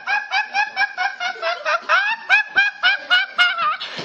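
High-pitched rapid laughter, a steady string of short 'he-he-he' pulses at about five a second.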